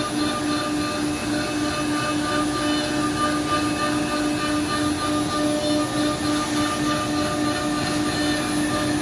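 Wood CNC nesting router running: a steady high-pitched spindle tone that pulses several times a second, over a steady hiss.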